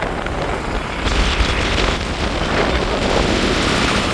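Wind buffeting the microphone over the running noise of a moving road vehicle, a steady rush with a heavy low rumble that strengthens about a second in.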